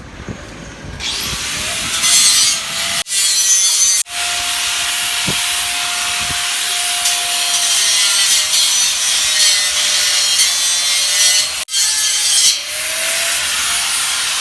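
Angle grinder cutting into the welded metal air-conditioner frame, the hiss of the disc on metal over a steady motor whine. It spins up about a second in, and it stops and restarts twice.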